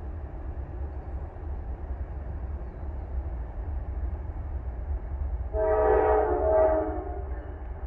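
Norfolk Southern diesel freight locomotive's air horn sounding a chord of several tones, about a second and a half long with a brief break, starting about five and a half seconds in, from the distant approaching train. A low steady rumble runs underneath.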